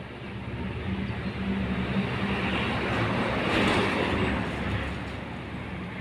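A passing motor vehicle: a low engine hum under rumbling noise that swells over the first few seconds, peaks a little past the middle, then eases off.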